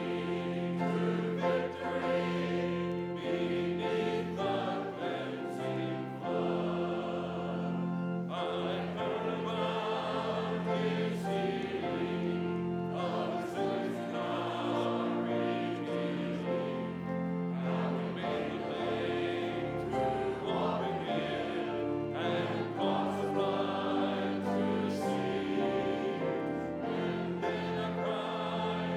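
A choir singing with instrumental accompaniment, in long held chords, as part of a church service.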